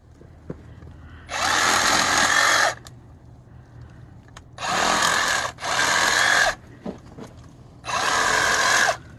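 Handheld electric power saw cutting overhanging tree branches, run in four short bursts of about a second each with pauses between.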